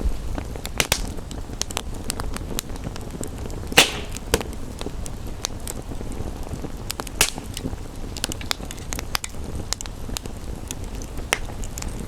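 Wood fire crackling, with frequent small irregular pops and a louder snap about four seconds in, over a steady low rumble.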